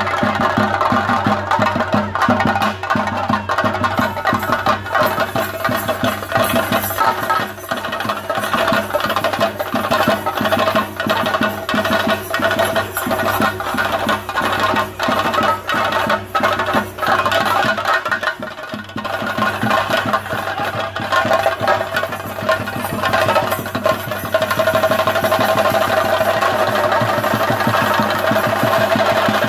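Ensemble of chenda drums beating a fast, dense rhythm, with steady pitched tones held above the drumming. The drumming thins for a moment about two-thirds of the way through, then runs on.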